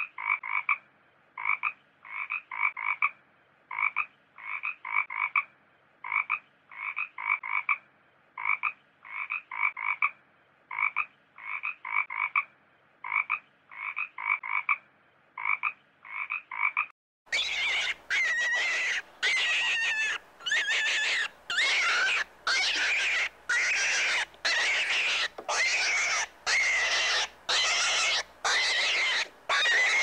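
A frog croaking in short pulses, grouped in quick pairs and triples. About seventeen seconds in, the croaking stops abruptly and a louder run of harsh squealing calls, roughly one a second, takes over.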